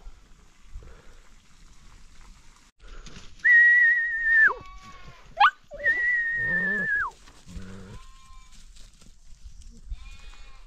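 A person whistling two long, steady high notes, each about a second long and sliding down at the end, with a short rising whistle between them. Sheep bleat around and under the whistles.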